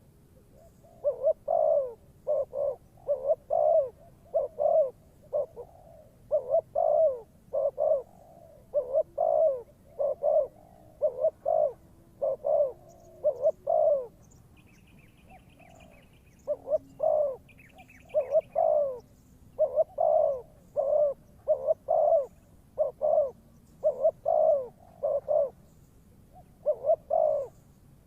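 Spotted dove decoy bird cooing, repeating short phrases of several low coo notes, with a pause of about two seconds midway.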